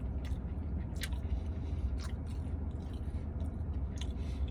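A person chewing a mouthful of seitan buffalo wing close to the microphone, with wet mouth clicks about once a second over a steady low hum.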